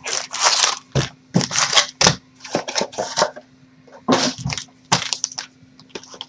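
A trading-card hobby box being unwrapped and opened: plastic wrapping crinkling and tearing along with cardboard handling, in a string of irregular crackles and rustles.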